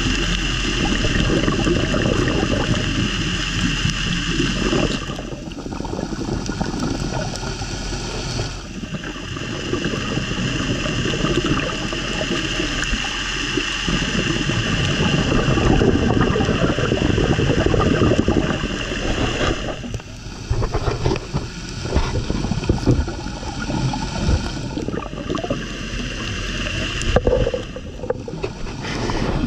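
Underwater noise picked up by a diver's camera: a steady rumble and gurgling of water and air bubbles, with a steady high hum over it that drops out briefly every several seconds.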